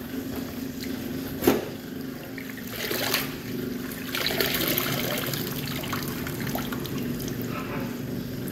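Water trickling and dripping as a handful of bitter melon leaves is washed and squeezed by hand, with two sharp knocks, about a second and a half in and again at three seconds, over a steady low hum.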